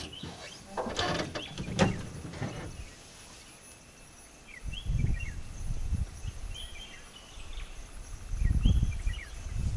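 Outdoor ambience with small birds chirping now and then. There is a burst of rustling noise about a second in. Low, dull bursts of noise come around five seconds in and again near the end, and these are the loudest sounds.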